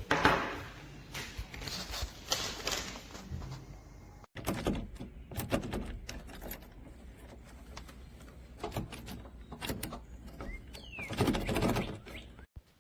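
Irregular clicking and clattering of small hard parts being handled, with a sudden break about four seconds in.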